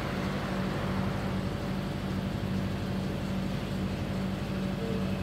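A vehicle engine running at a steady speed, a constant hum under the noise of road and wind.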